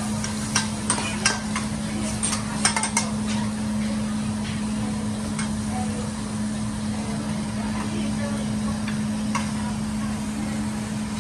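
Metal spatula and fork clinking and scraping on a steel teppanyaki griddle: a quick run of sharp clacks in the first few seconds, then only an occasional single tap, over a steady low hum.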